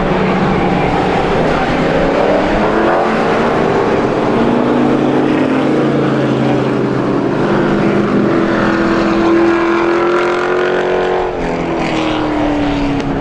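Several race truck engines running hard together as a pack on a short oval track, their engine notes climbing as they accelerate. About eleven seconds in, the pitch drops suddenly.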